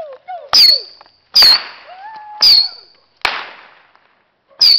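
Firecrackers going off: five sharp bangs at uneven gaps of about one second, each with a short high ring after it.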